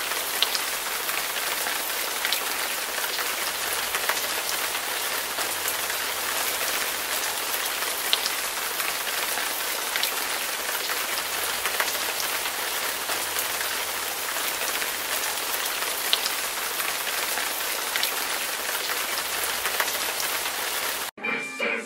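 Steady rain falling, with a few sharper single drop hits standing out now and then. It cuts off suddenly near the end.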